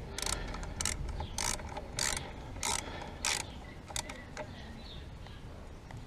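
Ratchet spanner clicking through about seven short strokes, roughly one every 0.6 s, as a bolt on a motorcycle's front brake caliper is done up; the strokes stop about four seconds in.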